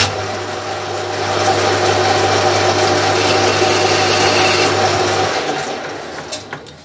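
Metal lathe running, its chuck spinning an off-centre workpiece: a steady motor hum under a broad mechanical whir from the spindle and gears. The hum stops about five seconds in, and the spindle coasts down and fades.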